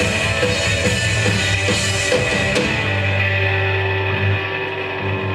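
Punk band playing live with drums, electric guitar and bass. About halfway through, the drums and cymbals stop and a held guitar and bass chord rings on, as at the close of a song.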